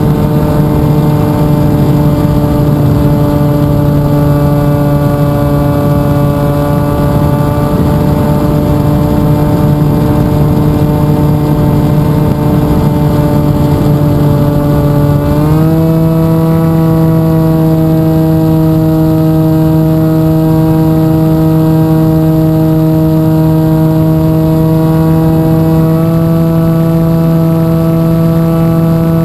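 FPV49 V2 RC flying wing's motor and propeller running steadily, heard close up from the onboard camera. Its pitch steps up about halfway through as the throttle is raised.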